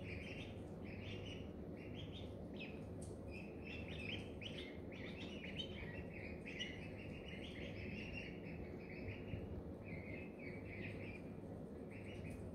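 Several ducklings peeping: a continuous stream of short, high-pitched chirps, often overlapping.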